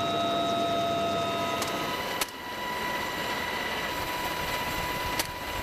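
Helicopter in flight, heard from inside the open cabin: steady turbine and rotor noise with high whining tones. Two sharp snaps cut through it, about two seconds in and again near the end.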